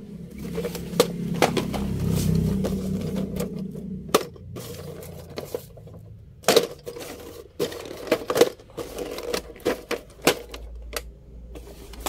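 Plastic blister packs and cardboard toy boxes being picked up and shuffled by hand: an irregular run of sharp plastic clicks, taps and crinkles.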